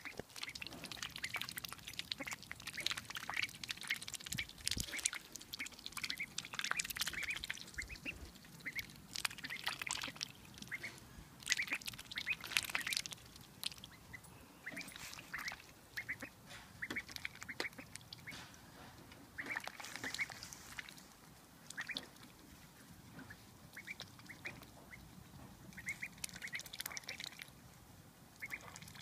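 A young duck calling again and again in short, high calls while it dabbles its bill in the water for mealworms, with small splashes.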